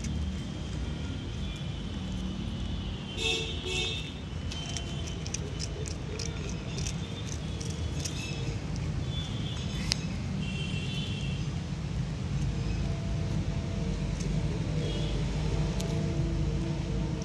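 Steady low rumble of road traffic, with scattered small clicks and crunches from a cat chewing pieces of dry biscuit, and a few brief high-pitched tones.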